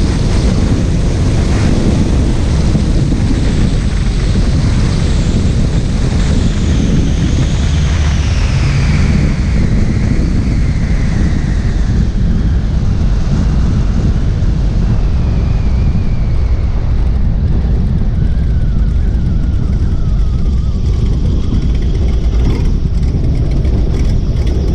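De Havilland Canada DHC-2 Beaver's radial engine and propeller running steadily as it lands and rolls out on a grass strip, with heavy wind rushing over the microphone. A faint whine slides down in pitch twice.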